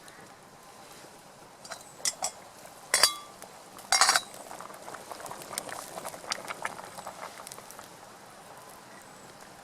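Metal camp cookware clinking: a couple of light taps, one clear ringing clink about three seconds in and a short rattle a second later, followed by a few seconds of fine crackling and bubbling.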